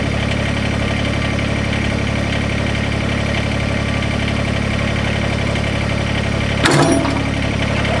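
Kubota BX compact tractor's three-cylinder diesel idling steadily. Near the end, a sharp metal clank comes from the trailer's coupler being latched onto the hitch ball; the coupler is stiff and in need of lube.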